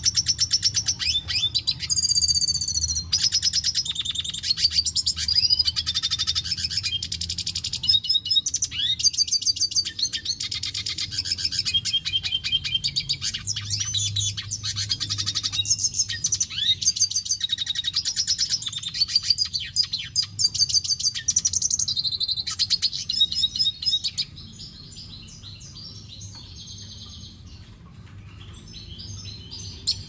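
Male red siskin singing a long, fast, twittering song of rapid trills and chirps, which thins out and drops quieter about 24 seconds in.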